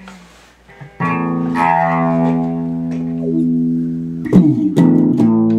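Electric guitar played through a vintage Sola Sound Colorsound Wah+Fuzz pedal with the wah on and the fuzz off: a chord struck about a second in and left to ring, then a quick run of fresh strums near the end.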